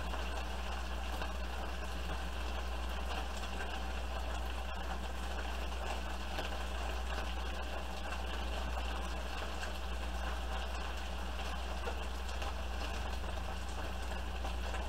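Chunks of chuck roast sizzling steadily as they brown in a nonstick skillet, turned now and then with tongs, over a constant low hum.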